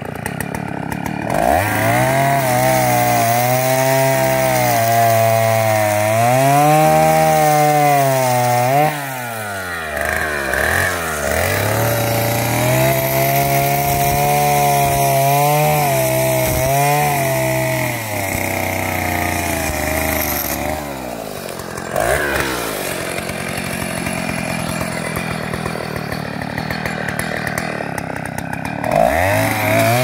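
Two-stroke chainsaw revving and dipping in pitch as it cuts through firewood logs. It drops back to idle twice, about 9 seconds in and again from about 18 seconds, and revs up again near the end.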